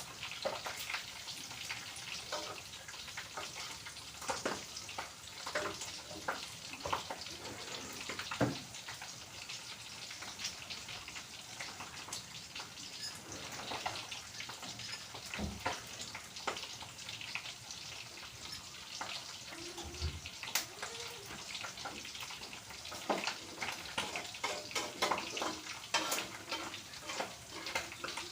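Hot oil sizzling steadily in a frying pan, with many small crackles and pops and a few louder clicks.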